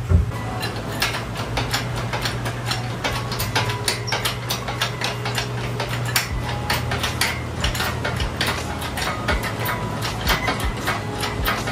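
Runs of quick ratcheting clicks from a hand ratchet being worked, over a steady low hum.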